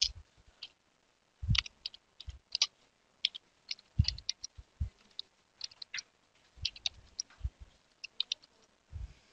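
Computer keyboard being typed on: irregular runs of key clicks with short pauses between, some strokes landing with a dull low thud.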